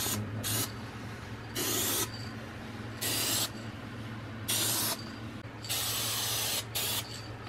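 Aerosol can of spray adhesive hissing in about seven short bursts as glue is sprayed onto a wall panel; the longest burst comes near the end. A low steady hum runs underneath.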